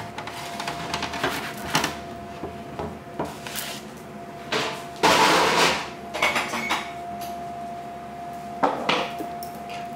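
Kitchen clatter of cookware and utensils: scattered knocks and clinks, with a louder scrape about five seconds in, over a faint steady hum.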